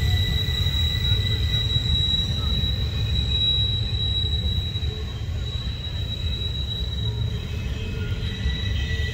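Double-stack intermodal well cars rolling past on the tight Horseshoe Curve, a steady low rumble with a high-pitched steady wheel-flange squeal. The squeal fades about two-thirds of the way through, and a lower squeal comes in near the end.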